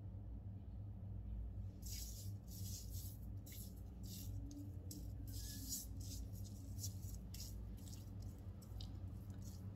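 Fingertips rubbing a foaming face mask over the skin: a run of short, wet, irregular rubbing strokes starting about two seconds in, over a steady low hum.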